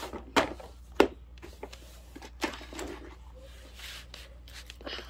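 Handling noise: two sharp knocks about half a second apart near the start, then a fainter knock and some rubbing as things are moved about.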